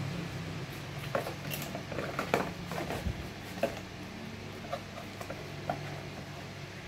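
Scattered light clicks and taps of small objects being handled, over a faint low hum.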